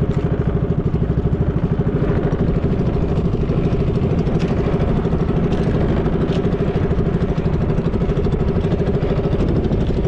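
Gasoline engine of a motorized outrigger fishing boat (bangka) running steadily under way, with a fast, even pulsing beat.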